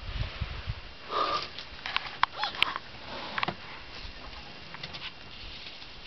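A short breathy sniff or puff of air about a second in, followed by a cluster of sharp clicks and brief high chirps, over faint outdoor background.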